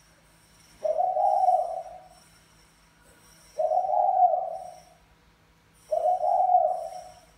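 Caged male spotted dove cooing in courtship calls meant to stir a hen. There are three low coo phrases, each a little over a second long, about two and a half seconds apart.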